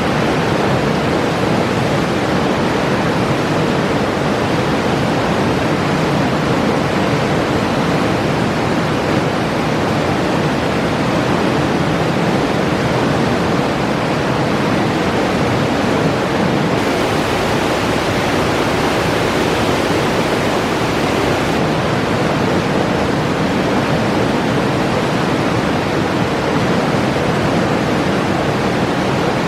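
Mountain river rushing and splashing over rocks, a loud, steady roar of water.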